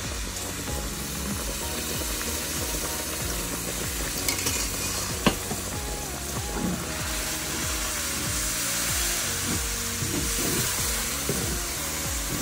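Hot jaggery syrup sizzling hard in a hot iron kadhai as it is stirred into roasted gram flour and ground flaxseed. The stove is off and the sizzle comes from the pan's leftover heat. About five seconds in there is one sharp knock.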